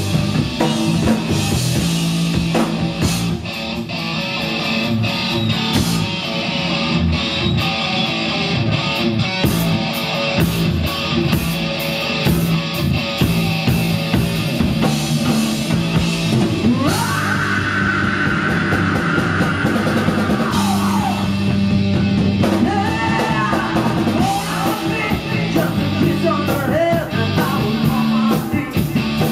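Live hard rock band played loud through a club PA: distorted electric guitar, bass and a drum kit with steady cymbal and snare hits, under a woman's lead vocal. About two-thirds of the way through, a high note slides up, holds for a few seconds and falls away, followed by wavering high notes.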